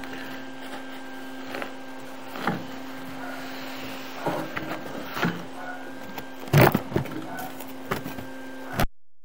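Steady electrical hum of a sewer inspection camera rig, with scattered knocks and clatters; the loudest clatter comes about two-thirds through. The sound cuts off suddenly just before the end.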